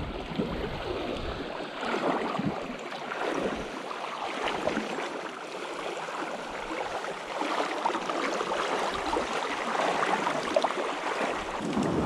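Creek water rushing and splashing: an uneven, noisy wash with small splashy clicks.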